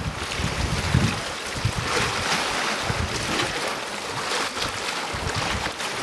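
Sea water washing and splashing among shoreline rocks, a steady hiss that grows a little stronger about two seconds in, with gusts of wind rumbling on the microphone.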